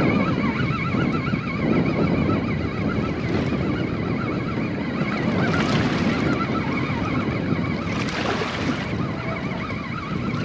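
Wind buffeting the microphone and water lapping against the hull of a small boat riding at anchor, with two brief splashy washes about six and eight seconds in.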